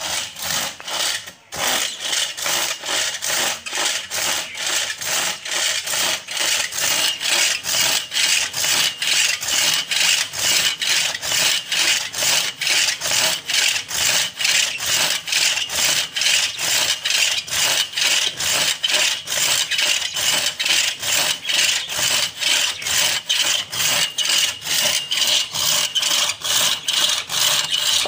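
Hand saw cutting through a dry tahli (shisham) stump, rasping back and forth in quick, even strokes at about two to three a second. There is a short break about a second and a half in.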